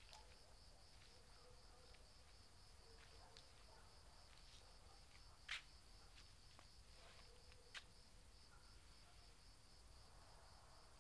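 Faint crickets chirping steadily in an even, pulsing rhythm, over a low hush. Two short sharp clicks stand out, about five and a half seconds in and again near eight seconds.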